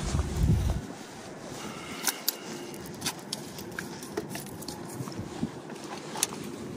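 Handling noise from fishing gear: scattered small clicks and scrapes, with a low rumble in the first second.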